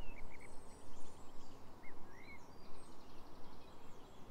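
Outdoor woodland ambience: a steady background hiss with birds calling over it, a few short chirps and a quick trill.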